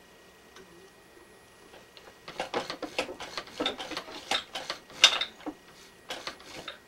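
Heavy camouflage fabric rustling and scraping in irregular bursts as it is worked by hand under a sewing machine needle that has jammed in it. It starts about two seconds in and is loudest about five seconds in.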